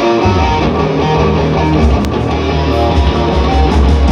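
Live rock band playing through a PA: electric guitar, with electric bass coming in just after the start.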